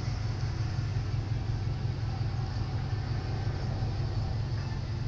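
Steady low rumble of background noise with no speech.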